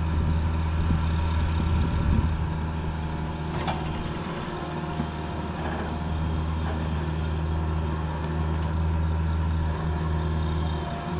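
Diesel engine of a mini excavator running steadily while it drags a chained load, with a single sharp knock of metal about four seconds in.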